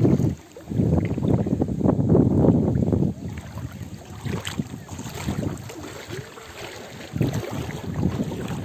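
Wind buffeting the microphone in uneven gusts, a rumbling noise that is heaviest in the first three seconds and picks up again near the end.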